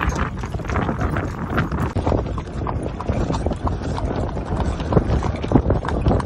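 A quick, uneven run of sharp knocks over a constant low rumble.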